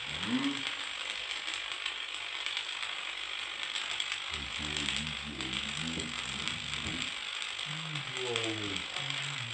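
Stick arc welding on steel square tubing: the arc crackles and sizzles steadily the whole time. A wavering pitched sound comes through in the background about halfway through and again near the end.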